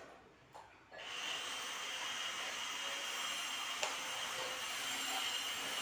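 A steady hiss starts abruptly about a second in and holds at an even level, with a faint high steady tone inside it; a single click sounds near the middle.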